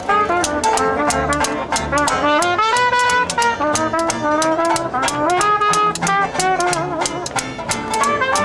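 Traditional jazz street band playing live: a trumpet leads the melody over clarinet, with banjo strumming, washboard and double bass keeping a steady beat of sharp clicks.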